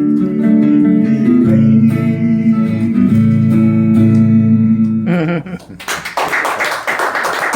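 Acoustic guitar strumming the closing chords of a song, which ring and stop about five seconds in. Applause follows.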